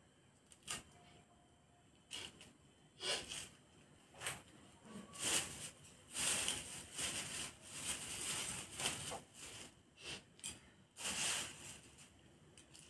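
Leafy greens being sliced against a boti, a curved blade fixed upright on the floor. It makes a run of irregular crisp cutting and rustling strokes from about two seconds in, densest in the middle, that stops shortly before the end.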